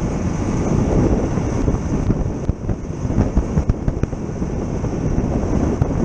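Wind buffeting a microphone held outside the window of a moving Toyota Bandeirante, over the running of its diesel engine and the rumble of the 4x4 on a dirt road.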